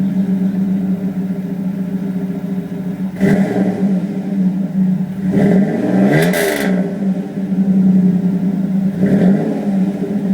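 Car engine idling through a Flowmaster muffler, with the exhaust leak repaired, and revved three times: a short blip about three seconds in, a longer rev that rises and falls about halfway through, and another short blip near the end.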